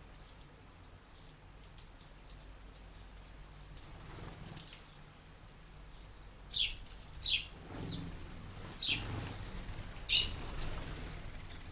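House sparrows chirping: a few faint chirps, then about five sharp, short chirps in the second half, the loudest near the end, with a flutter of wings as the birds fly off.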